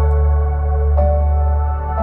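Ambient background music: a deep sustained bass drone under soft held notes that change about once a second.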